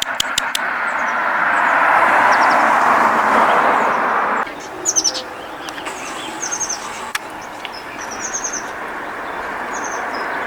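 Small birds chirping in quick short series throughout, over a few sharp clicks at the start. A loud rushing noise swells during the first few seconds and cuts off suddenly about four and a half seconds in.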